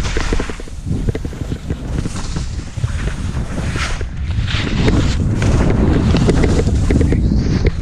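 Wind buffeting a helmet-mounted GoPro microphone as a skier descends at speed, a steady low rumble, with skis scraping over the snow in a few louder surges through the turns.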